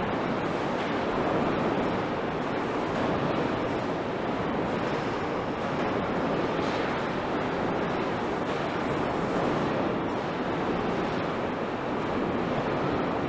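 Steady rushing noise with no distinct events: the ambient roar of a large aircraft assembly hangar.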